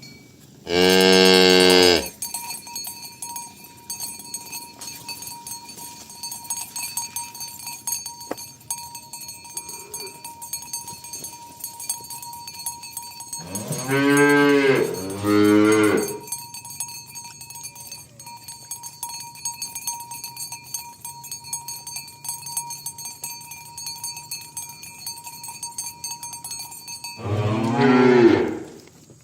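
Cows mooing: four long moos, one near the start, two back to back about halfway, and one near the end.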